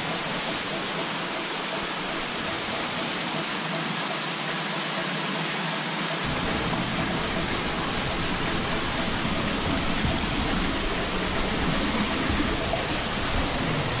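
Steady rush of an underground waterfall and cascading cave water, running high with heavy flow. A deeper rumble joins the rush about six seconds in.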